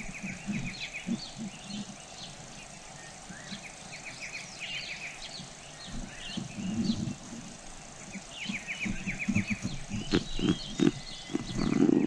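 Small birds chirping in quick high trills, each a run of about half a dozen rapid notes, repeating every few seconds. Under them run irregular low muffled thumps and rustles from the dove feeding its squabs in the nest, loudest near the end.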